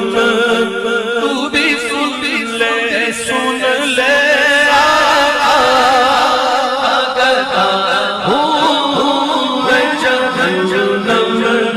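Urdu naat sung by male voices without instruments: a wavering lead melody over a layered vocal backing.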